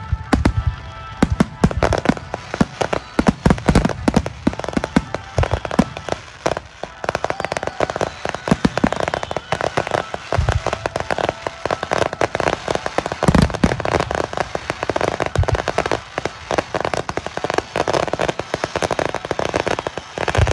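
Fireworks display: aerial shells bursting in rapid, near-continuous succession with crackling, a few heavier deep booms standing out in the middle of the barrage.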